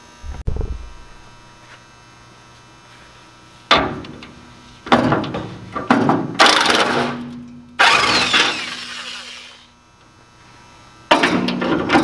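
Cordless impact wrench hammering in several bursts of one to two seconds, backing out the bolts that hold a tractor's rusty rear fender. A low thump about half a second in.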